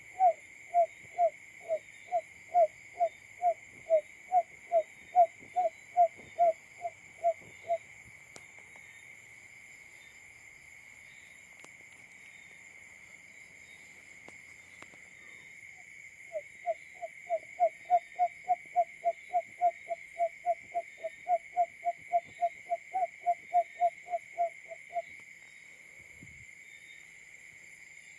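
Simulated call of a male barred buttonquail: a long run of short, low hooting notes, about three a second, then a pause, then a second, faster run. A steady high-pitched hum runs underneath.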